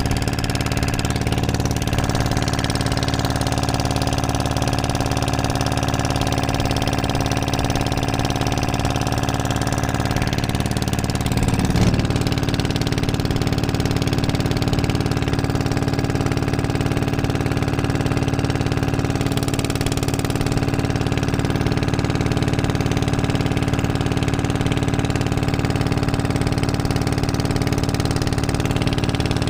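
Fishing boat's motor running steadily while under way, an even engine note whose pitch shifts slightly about twelve seconds in.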